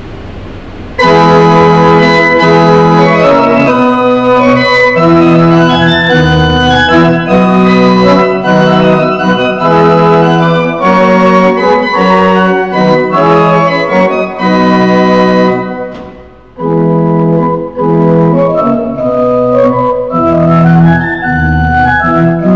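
Church pipe organ playing a prelude in sustained chords. It comes in about a second in and breaks off briefly about two-thirds through before carrying on.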